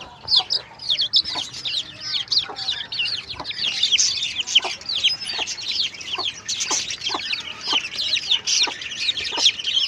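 Country chicks peeping: a dense run of short, high chirps, each falling in pitch, many overlapping every second.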